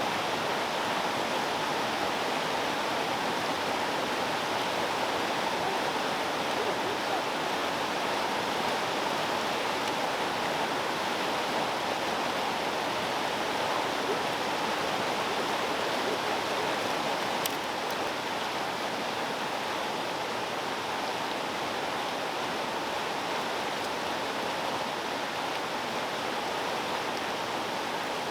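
Small mountain creek running, a steady even rush of water.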